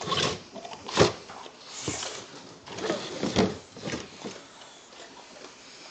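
A white plastic treat container being handled, giving a few sharp knocks and rustles, the loudest about a second in, with a dog sniffing and nosing at it. The sounds thin out near the end.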